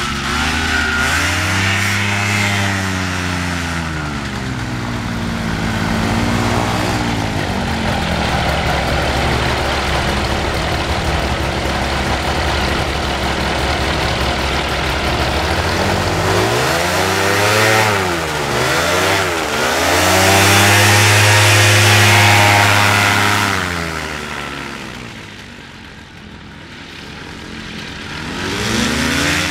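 Simonini Victor 100 hp two-stroke aircraft engine of an amphibious microlight trike, running its pusher propeller while the trike taxis. The engine note rises and falls several times, is loudest a little past the middle, fades about three-quarters through, then swells again near the end.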